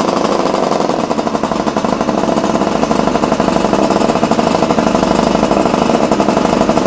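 Derbi 168 cc twin-cylinder motorcycle engine running steadily, with a rapid, even beat of firing pulses.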